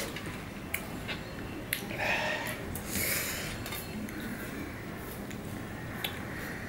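Bare hand mixing pomelo pulp on a steel plate: soft squishing and rustling of the fruit segments, with a few light clicks of fingers against the plate.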